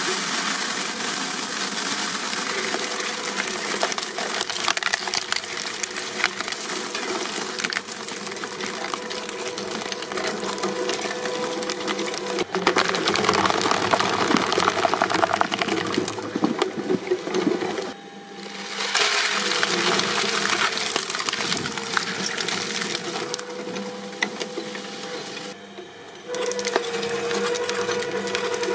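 Shredding machine running under load, a steady hum under a dense crackle of material being crushed and torn. The sound breaks off and changes abruptly a few times, once about halfway through and again near the end.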